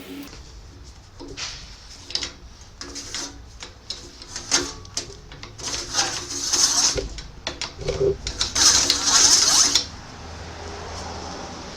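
Sheet metal and hand tools being worked: irregular clicks, knocks and clanks, with two longer scraping, rasping stretches a little past the middle.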